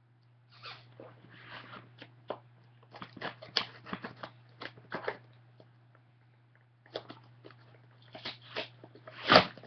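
A taped cardboard shipping box being forced open: irregular crackling, scraping and tearing of packing tape and cardboard, with a pause about five seconds in and a louder rip near the end.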